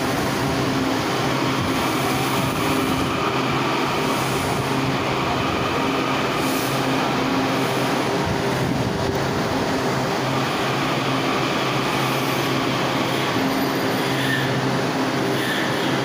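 WMATA Metrorail train pulling slowly out along the platform, its electric traction equipment giving a steady hum over wheel and rail noise.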